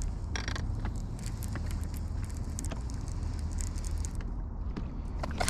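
Wind rumbling on the microphone while a baitcasting reel is cranked to retrieve an A-rig, with scattered light clicks from the reel and line.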